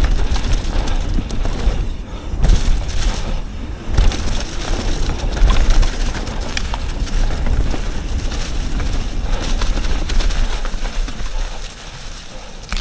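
Wind rumbling on the microphone and a mountain bike's tyres and frame rattling as it is ridden down a trail, with scattered knocks over rough ground. It eases off near the end.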